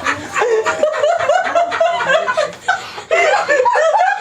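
People laughing, with a brief lull about three quarters of the way through before the laughter picks up again.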